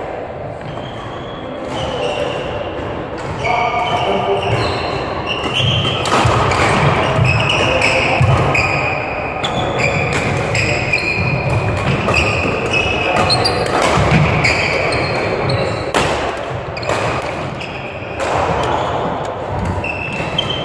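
Badminton doubles rally in a large echoing sports hall: sharp racket hits on the shuttlecock, with court shoes squeaking and thudding on the floor as the players move.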